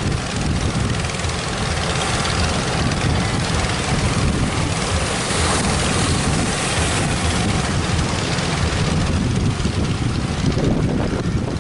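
Strong wind buffeting the microphone in a steady low rumble, over the wash of ocean waves.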